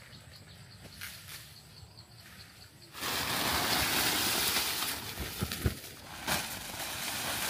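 Dry corn husks, cobs and sacks rustling as they are handled. The rustling starts suddenly about three seconds in, with a few sharp knocks of cobs. Before that there is only faint background.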